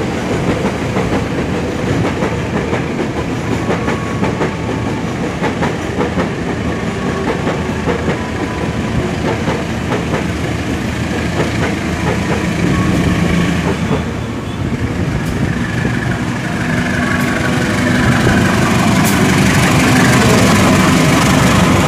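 Diesel-electric locomotive hauling passenger coaches approaches a station platform: a steady rumble with scattered clicks from the rails, and the engine's low hum growing louder over the last several seconds as it draws level.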